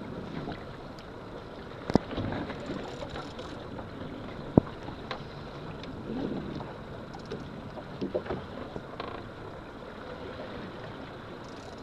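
Steady wind and water noise aboard a small open fishing boat while a heavy rod and reel are worked against a hooked fish, with two sharp knocks, about two seconds in and again a little before the five-second mark.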